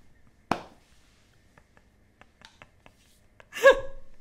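A sharp click, then several faint light clicks, then a short wordless vocal sound from a man near the end.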